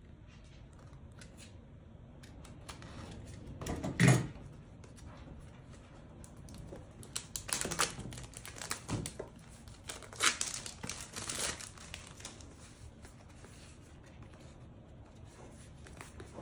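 Clear plastic shrink wrap slit with a utility knife and peeled off a small cardboard box, crinkling and tearing in a cluster of crackles through the middle of the stretch. A single loud knock about four seconds in.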